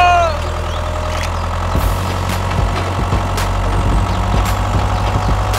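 Tractor engine running steadily with a low, even hum, a few faint clicks scattered through it.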